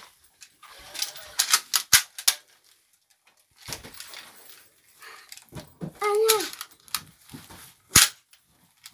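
Sharp clicks and knocks: a quick run of them about a second in, a few more around four seconds, and a single loud knock near the end. A short high cry with a rising and falling pitch comes about six seconds in.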